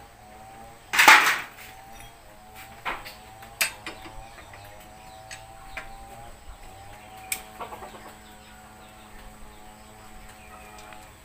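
Chickens clucking in the background, with a few sharp metal clinks from hand tools working on a scooter; a loud clatter about a second in is the loudest sound.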